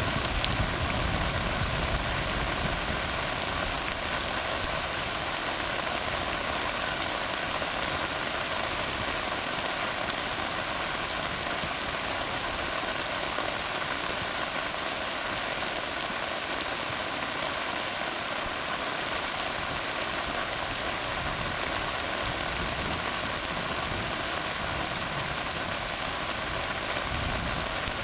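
Steady rain falling on a tarred road: a dense, even hiss with fine drop ticks. A low rumble fades out in the first second.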